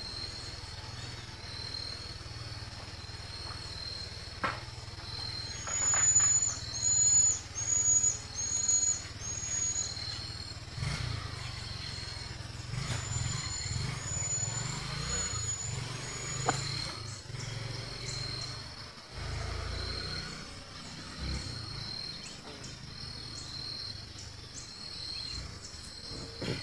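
Wild birds calling at dawn: a run of five loud, high, hooked calls about six seconds in, and a fainter run of similar calls later. Under them, a high chirp repeats about once a second, with a low rumble that swells in the middle.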